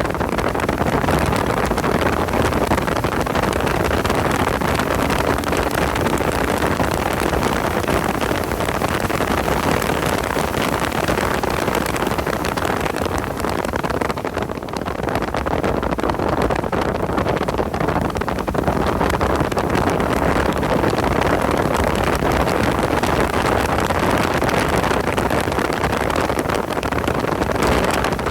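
Porsche 986 Boxster's flat-six engine running at track speed, mixed with heavy wind and road noise. The level dips briefly about halfway through.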